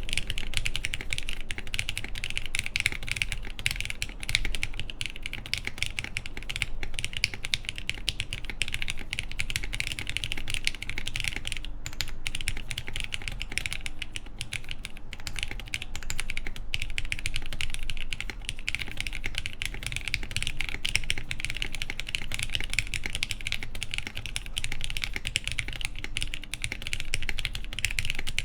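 Mechanical keyboard with lubed Cherry MX Black linear switches, mounted on the PCB with no plate and fitted with Hammer CRP keycaps, being typed on continuously in quick successive keystrokes, with a brief break about twelve seconds in.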